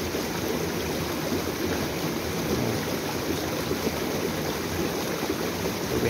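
Shallow stream water rushing over rocks in a small cascade: a steady, even rush.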